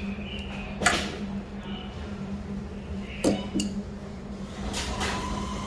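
Small metal parts clinking and clicking as an espresso machine's water tap is reassembled: one sharp click about a second in, then two more close together a little after three seconds, over a steady low hum.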